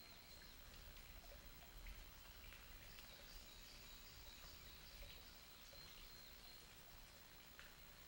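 Near silence: faint forest background with a thin steady high whine, and a faint high trill of quickly repeated notes in the middle.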